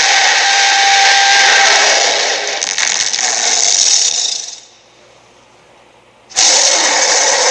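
Cartoon sound effect: a steady, noisy mechanical whir. It fades out about four and a half seconds in and starts again abruptly about a second and a half later.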